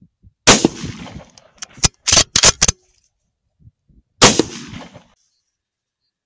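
.308 Winchester rifle firing twice, about 3.7 seconds apart, each shot trailing off in a short echo. Between the shots comes a quick run of four or five sharp clicks.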